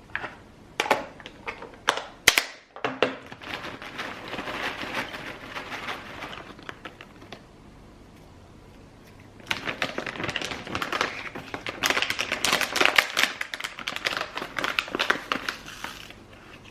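Kitchen food-preparation sounds while making oatmeal: a few sharp knocks at the start, then two long stretches of rapid clicking and rattling with a quieter pause between them.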